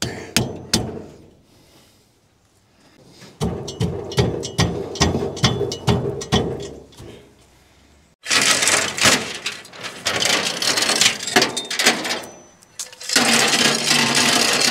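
Manual chain hoist being worked: a run of clicks and knocks from the hand chain and ratchet, then stretches of loud, even rattling noise.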